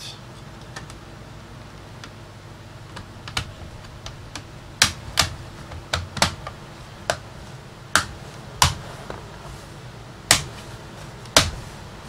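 Plastic bottom access cover of a Samsung RF511 laptop being pressed down onto the base, its clips snapping into place in about a dozen sharp, irregular clicks.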